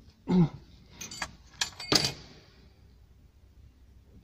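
A brief voiced sound near the start, then a quick series of sharp metallic clinks with a short ring, about a second in: a wrench slipping from the hand and clattering down into the engine.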